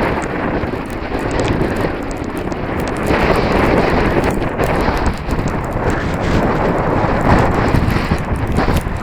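Strong wind buffeting the camera microphone in loud, gusting rushes.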